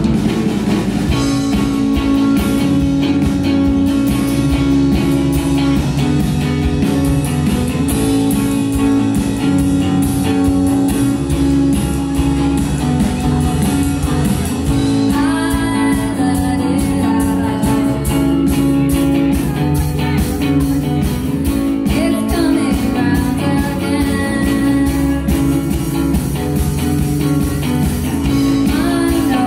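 Live band music: a woman singing over a strummed guitar and an electric bass guitar.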